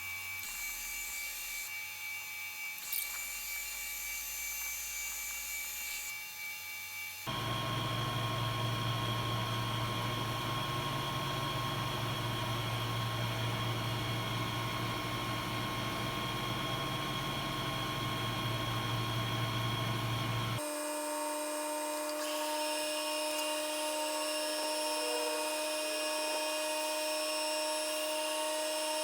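Metal lathe running steadily with its motor and gear drive humming, turning and finishing a steel shaft. The sound changes abruptly about 7 and 21 seconds in, getting louder and deeper at the first change.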